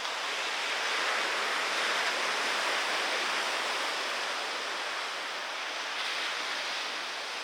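Steady rushing noise of surf and moving water, a little louder from about a second in.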